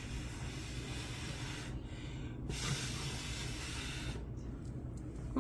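Steady hissing noise over a low rumble, breaking off twice for under a second.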